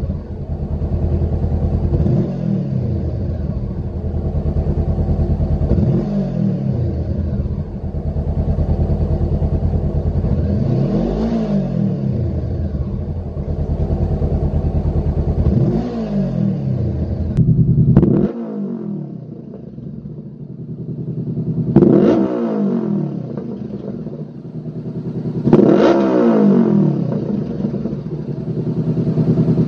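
Honda CBR500R's 471 cc parallel-twin engine ticking over and blipped up and down in quick throttle revs, about every four seconds. It runs through the stock silencer at first, then partway through through a Lextek OP15 stainless aftermarket exhaust, whose revs rise more sharply and louder over a quieter idle.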